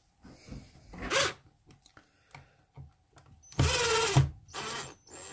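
Cordless drill driving a screw through a switch plate into the wall: a half-second run about three and a half seconds in, its pitch dropping as the screw seats, then a shorter second run. A brief scrape comes about a second in as the wired plate is pushed into the wall box.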